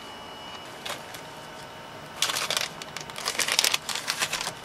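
Hands handling loose wiring and plastic packaging on a workbench: a light click about a second in, then a quick run of crinkles and small clicks from about two seconds in.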